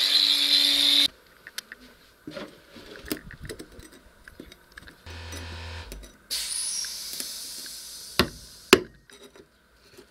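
A power tool running cuts off about a second in, followed by light clicks and knocks of tools being handled against the floor. A steady hiss lasts about two seconds, and two sharp knocks come near the end.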